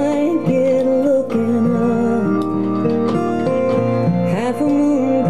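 A woman singing a country ballad live into a microphone, her voice gliding over a sustained band accompaniment.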